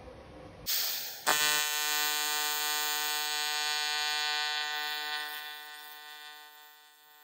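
TIG welding arc on aluminium: a short hiss about half a second in and a sharp crack as the arc strikes, then a steady, high-pitched buzz from the AC arc. The buzz fades out over the last two seconds.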